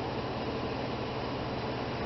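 2010 Ford F-150's 5.4-litre V8 idling, a steady hum and hiss, left running at operating temperature for the transmission fluid level check.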